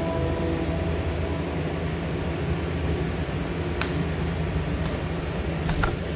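Steady low mechanical hum with a hiss over it, like a running fan. A light click comes a little under four seconds in and a couple more near the end.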